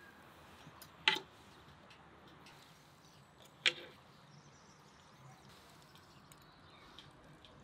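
Two sharp knocks of kitchenware, about two and a half seconds apart, each with a short ring, over a faint steady hiss.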